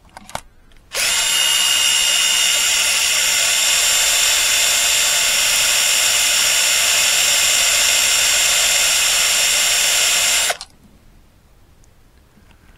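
Cordless drill spinning an injector-seat milling cutter in a diesel cylinder head's aluminium injector bore. It starts about a second in, runs at one steady speed for about nine seconds, then stops abruptly. The seat is being milled clean where combustion gas leaked past the injector.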